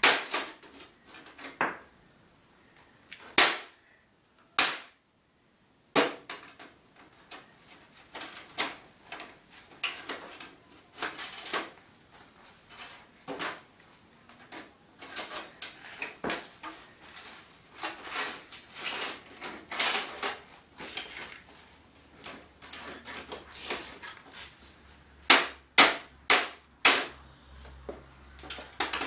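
Hammer blows on the steel case of a desktop computer, with metallic clanks and clatter as its panels and parts are bashed and pried apart. Sharp, irregular knocks throughout, with a quick run of about five loud strikes near the end.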